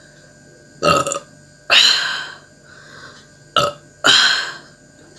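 A woman burping after drinking cold carbonated Sprite, in two bouts: each is a short sharp burp followed at once by a longer one that fades out.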